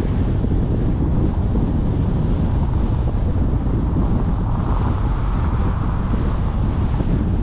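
Wind buffeting a car-mounted microphone over the steady low rumble of a car driving on the road, with a rush of higher noise swelling for a couple of seconds about halfway through.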